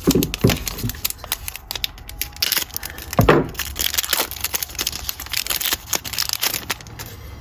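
Foil trading-card pack wrapper being crinkled and torn open by hand: a dense run of irregular crackles.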